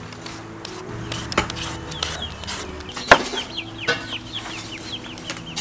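Repeated scraping strokes of a julienne shredder cutting green papaya into strands, with a sharp knock about three seconds in. Chickens cluck in the background through the second half.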